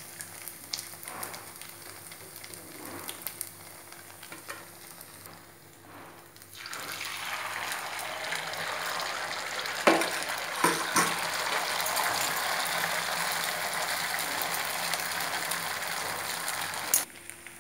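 Malpua batter ladled into hot ghee in a frying pan: a quiet sizzle with scattered clicks swells about seven seconds in into a loud, steady sizzle as the fresh batter fries, with a couple of sharp clicks a few seconds later. The sizzle stops abruptly near the end.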